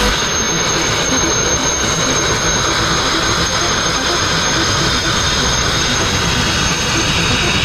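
Sandblasting nozzle running steadily: a loud, even hiss of compressed air and abrasive grit blasting old paint, rust and growth off a narrowboat's steel hull down to bare metal.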